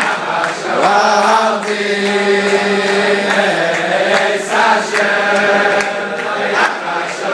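A large group of men singing a Jewish dancing tune together in unison, with sharp rhythmic beats, likely clapping, about three times a second.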